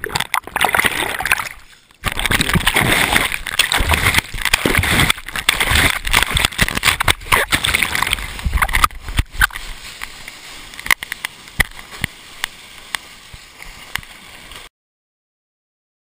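Surf water splashing and churning around a wrist-mounted GoPro, heard through its waterproof housing, with many sharp knocks against the case. It quiets after about nine seconds, leaving scattered clicks, and cuts off suddenly near the end.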